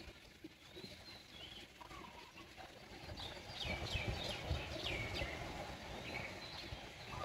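Birds chirping outdoors: a few faint high chirps, then a quick run of short chirps around the middle, over a low rumble.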